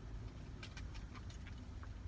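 A quick run of light clicks and taps, about seven in a second and a half, from a puzzle box being handled and worked at, over a steady low rumble.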